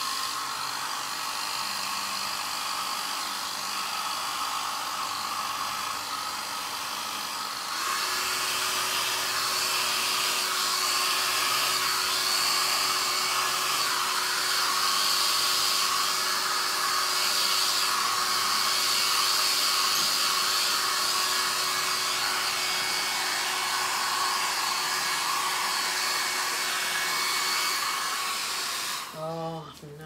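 Small handheld hair dryer running steadily, blowing wet acrylic paint across a canvas. It gets louder about eight seconds in, with a steady low hum joining the rush of air, and switches off just before the end.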